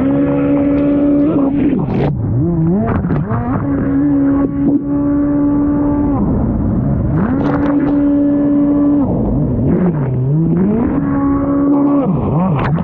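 Race-built 1500 cc four-stroke GP1 jet ski engine running at high, steady revs, with the revs dropping and sweeping back up several times, over the rush of water spray off the hull.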